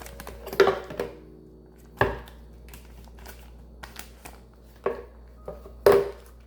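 A kitchen utensil knocking against a hard bowl or jar about six times, each knock ringing briefly, the loudest near the start and near the end.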